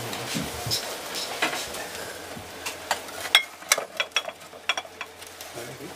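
Glass jars clinking and knocking against each other as they are handled and moved about on a shelf. It is a scatter of sharp clinks, some of them briefly ringing, that come thickest in the second half, over a steady hiss.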